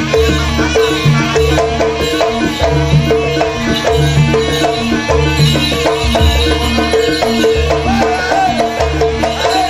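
Live Javanese jaranan music: drums and pitched percussion playing a fast, evenly repeating rhythm.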